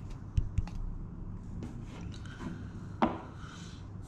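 Hands handling a watch presentation box on a wooden tabletop: two low thumps less than a second in, then a sharp knock about three seconds in.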